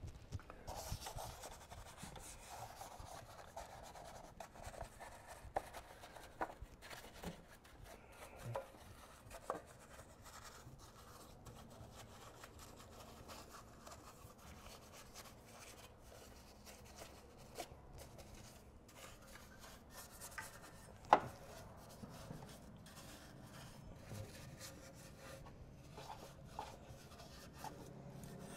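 Faint scrubbing of a detail brush on engine-bay plastics and metal coated with all-purpose cleaner, a steady rasping with scattered small clicks. One sharper tick comes about 21 seconds in.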